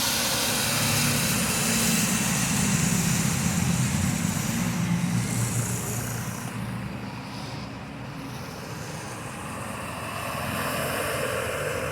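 Motor traffic passing on a wet street in the rain: an engine drone that fades away about halfway through, then another vehicle approaching near the end, over a steady hiss of rain.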